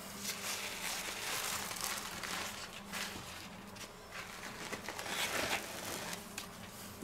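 Paper towels rustling and crinkling as they are peeled off and lifted away from a raw veal roast.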